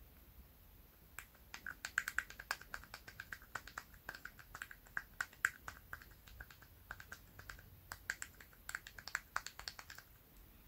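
Rapid, irregular small metallic clicks as a precision screwdriver bit works at a screw in a cheap plastic spinning reel's body during disassembly.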